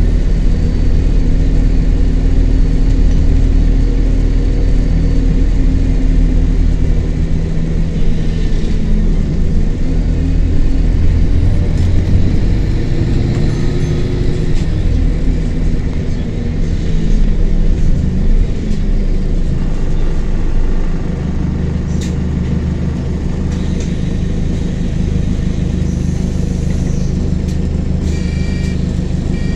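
Bus diesel engine heard from inside the saloon of bus 36656, pulling along and rising and falling in pitch. About two-thirds of the way through it settles to a steadier, quieter idle as the bus comes to a stop. Near the end a door warning buzzer starts beeping.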